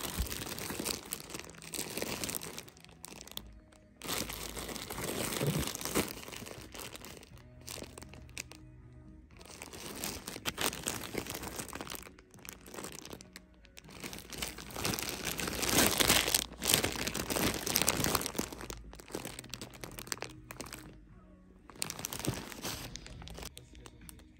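Packaging being handled and crinkling in bursts, with short pauses between, over soft background music.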